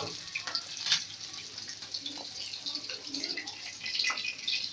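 Fish pieces frying in oil in a wok, nearly done: a steady sizzle full of small crackles. A metal spoon knocks sharply against the pan about a second in and again near the end.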